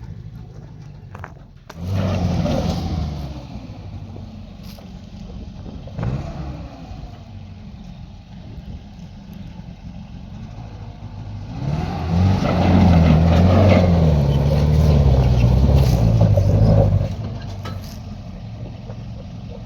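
A vehicle engine running low and steady. It revs up briefly about two seconds in, then again for several seconds from about twelve seconds in, its pitch rising and falling.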